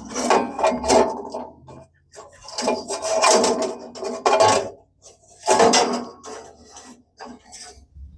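Steel sawmill band blade being worked onto its band wheels: metal scraping and clattering in several bursts of a second or two, with short pauses between.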